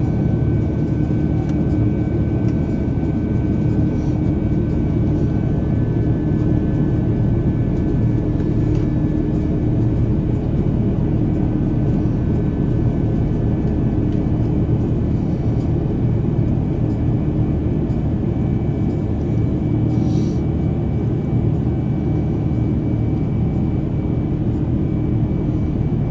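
Steady cabin noise of an Airbus A330-900neo climbing after takeoff: the low rumble of its Rolls-Royce Trent 7000 engines and airflow, with faint steady whining tones. A small click about twenty seconds in.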